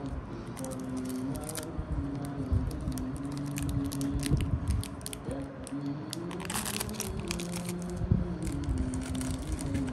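Light background music with clicks and crinkling as a trading-card pack is opened and its cards handled, with a longer rustle about six and a half seconds in.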